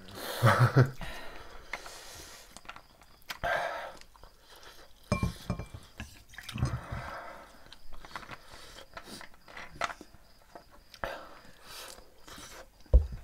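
Close-miked chewing of spicy instant noodles, with scattered clicks of chopsticks and dishes, a sharp knock about five seconds in and another near the end, and a few short bits of quiet speech.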